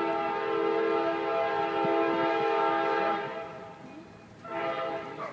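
Freight locomotive's air horn blowing a chord of several notes as the train nears a grade crossing: a long blast that stops about three seconds in, then a short blast about a second and a half later.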